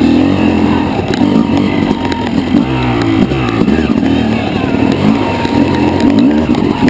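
Yamaha YZ250 two-stroke dirt bike engine being ridden, its pitch rising and falling again and again as the throttle is worked.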